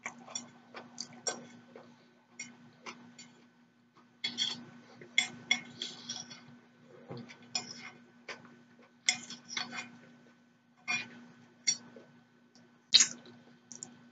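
Metal fork scraping and clinking against a ceramic plate in irregular clusters of short, sharp clicks as the last scraps of food are gathered up.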